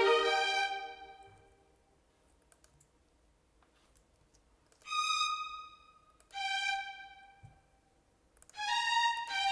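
Sampled violin notes from notation-software playback: a phrase dies away in the first second or so, then after a few faint mouse clicks two single high notes sound about five and six and a half seconds in, and notes start playing again near the end.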